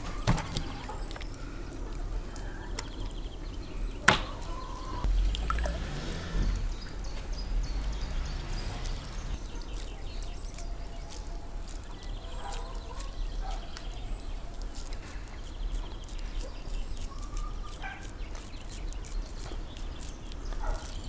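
Hands squeezing minced wild boar meat onto flat metal skewers, with small handling clicks and one sharp click about four seconds in. Wind rumbles on the microphone, and faint bird calls come and go.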